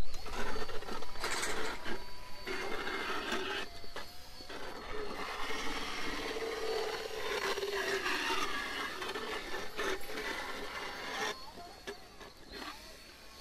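Motorised equine dental float (power float) grinding down a horse's uneven teeth in long runs broken by short stops, dying away near the end.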